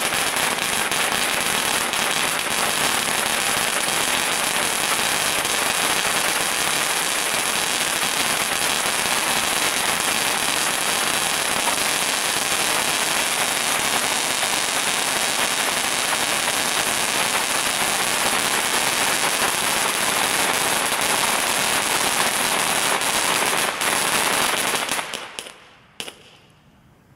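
Red Wire 'Cone of Crackling' cone fountain firework burning: a dense, continuous crackling of popping sparks that dies away about 25 seconds in as the cone burns out, with one last crack just after.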